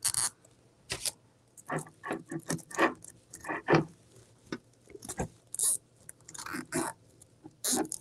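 Short, irregular crinkles and scrapes of poly burlap mesh being gathered and handled while a plastic zip tie is worked and pulled tight around it, about fifteen brief rustles in all.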